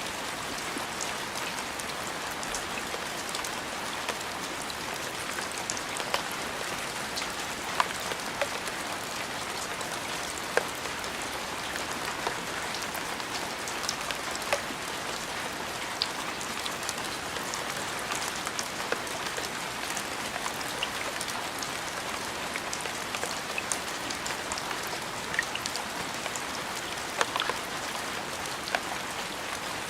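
Steady rain falling, an even hiss with individual drops ticking sharply now and then.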